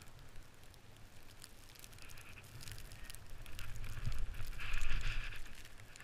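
Snow crunching and swishing as the camera moves through fresh powder, with a low rumble of wind or handling noise on the microphone. The crunching comes in irregular bursts and is loudest about five seconds in.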